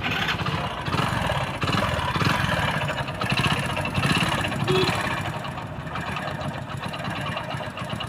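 Hero HF Deluxe's single-cylinder four-stroke engine running with a lot of mechanical noise from inside the engine, a little louder for the first few seconds and then settling. The mechanic traces the noise to worn crankshaft bearings and play in the crank.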